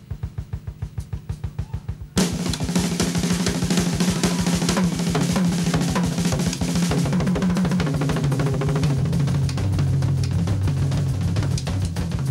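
Live funk-rock band. A drum kit keeps a fast, even beat at first. A little over two seconds in, the whole band comes in much louder, with the drums driving it and a bass line moving underneath.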